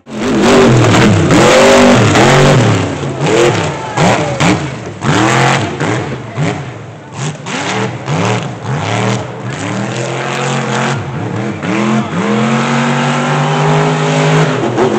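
Mega truck engine revving hard up and down, over and over, loud. Near the end it holds a steadier pitch for a couple of seconds.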